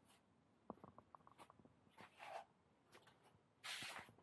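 Near silence with a few faint clicks and two soft scuffs, the louder one near the end: the small sounds of someone moving about a cluttered room.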